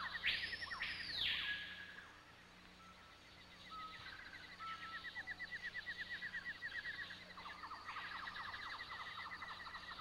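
Tropical forest ambience: a steady, fast chirping trill with short whistled bird calls, and a loud harsh rasping call that swells about a second in and again near the end, when a second, lower trill joins in.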